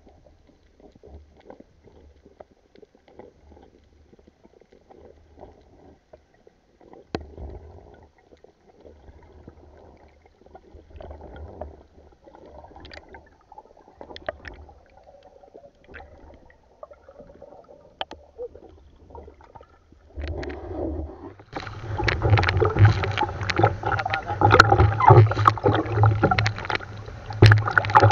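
Underwater ambience over a coral reef: a quiet, muffled hush with scattered faint clicks. About three-quarters of the way through it turns much louder and rushing as the diver comes up into choppy surface water, with waves sloshing and splashing against the gear.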